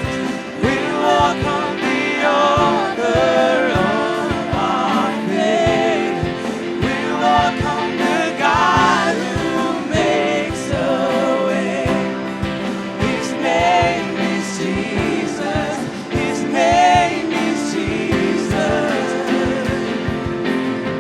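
Worship music: singers with a backing band holding sustained chords, the voices wavering in pitch.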